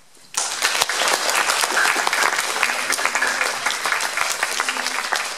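Audience applauding: many hands clapping, starting suddenly about a third of a second in and keeping up steadily.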